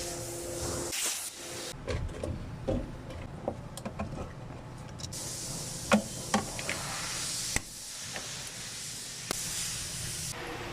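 Hissing in separate stretches of one to two seconds, with scattered light clicks and knocks in between.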